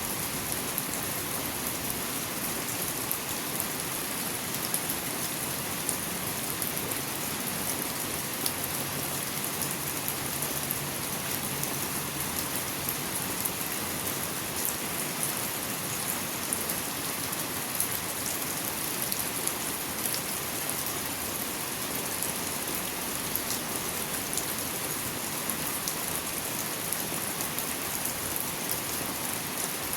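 Steady rain falling, with the close patter of many individual drops striking surfaces.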